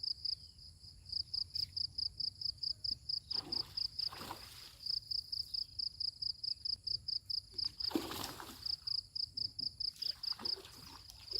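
An insect, likely a cricket, chirping in a fast, even pulse of about five high chirps a second, pausing briefly now and then. Two short rushing noises come about four and eight seconds in.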